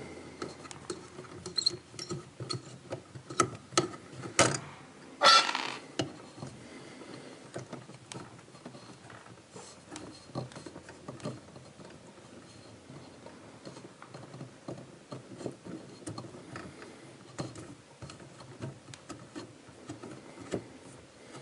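Faint, irregular small clicks and scrapes of hands disconnecting the dishwasher's electrical wires in its junction box, with a louder scrape about five seconds in.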